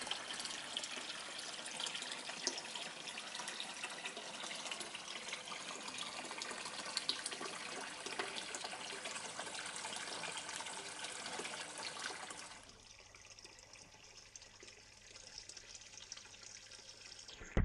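A stream of water pouring into a turtle pond, splashing steadily. About twelve seconds in it becomes quieter and duller.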